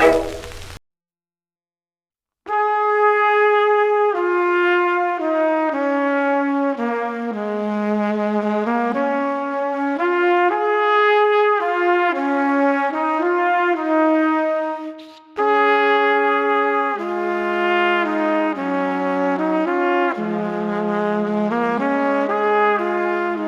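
Soundtrack music: a brass melody, trumpet and trombone-like, playing a run of changing notes. It starts after a short silence about two seconds in and breaks off briefly past the middle before going on.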